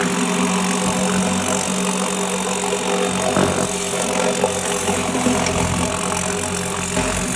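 Compressed-air spray setup running: a steady hiss from the spray nozzle over a motor's even hum, with a few light knocks and rattles.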